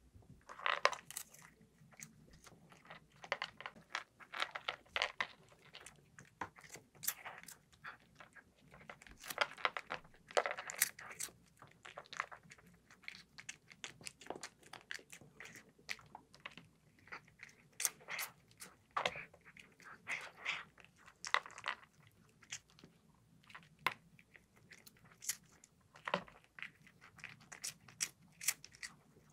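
A cat chewing dry cat food: irregular crunches coming in short runs with brief pauses between.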